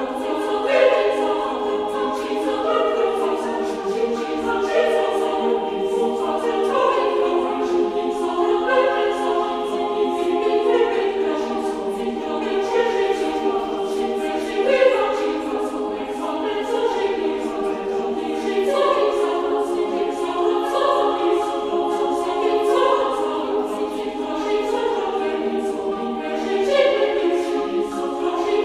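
AI-generated choral music: many voices singing sustained chords, swelling gently about every two seconds, with no bass beneath.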